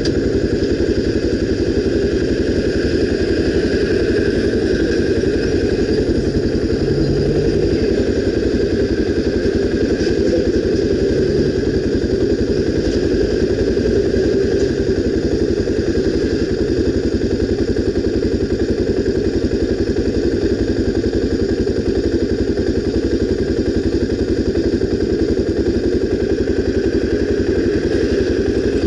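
Honda XR 250 Tornado motorcycle's single-cylinder four-stroke engine running at a steady speed, loud and unbroken, with no revving up or down.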